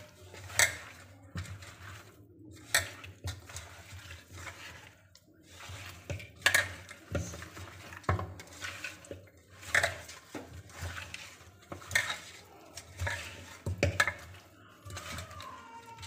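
Raw fish pieces being mixed by hand with spice powder in a stainless steel bowl: irregular clinks and knocks of the steel bowl every second or two over a soft rustle of the mixing.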